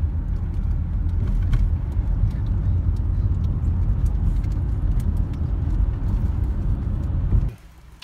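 Car cabin noise at highway speed: a steady low rumble of tyres on the road and the engine. It cuts off suddenly near the end, leaving a much quieter low hum as the car rolls slowly.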